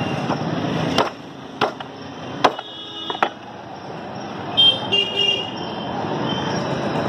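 About four sharp knocks of a butcher's knife chopping pork on a wooden table in the first three and a half seconds, over steady street traffic noise. A vehicle horn sounds briefly around the third second, and another short horn comes about halfway through.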